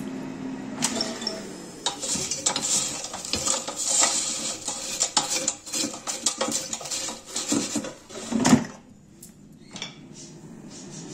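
Metal kitchenware clattering: quick repeated clinks and scrapes, like fries being turned with a utensil in a metal cooking basket or pan, ending with a louder clunk. A steady appliance hum stops just as the clatter begins and comes back near the end.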